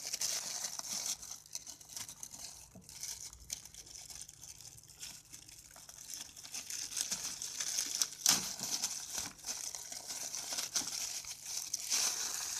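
A clear plastic packaging bag crinkling and crackling in fits and starts as hands peel it off a phone flip case, with a sharper crackle about eight seconds in.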